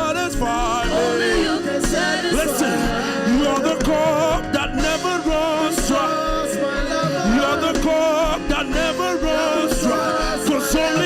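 Live worship band playing a song with a steady beat, with singing over it.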